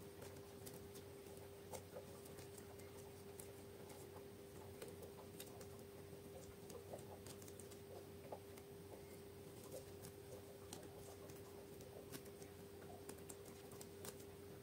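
Faint, irregular soft clicks and sticky pops from hands working slime, over a steady low electrical hum.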